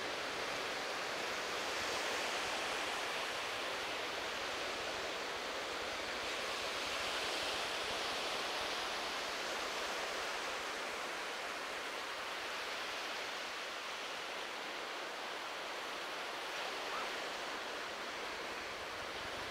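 Ocean surf washing on a beach: a steady rushing hiss that swells slightly now and then.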